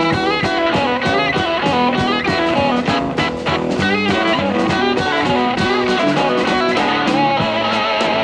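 Electric blues band playing an instrumental passage: an electric slide guitar plays wavering, gliding lines over sustained guitar notes and a steady drum beat.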